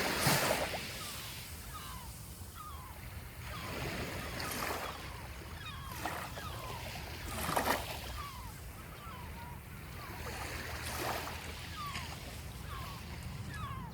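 Sea waves washing onto the shore, swelling and falling back in surges every three to four seconds, with faint short chirping bird calls scattered between them.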